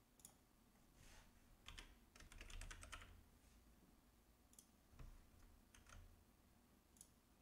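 Faint computer keyboard typing: a quick run of keystrokes about two to three seconds in, with single key presses scattered before and after.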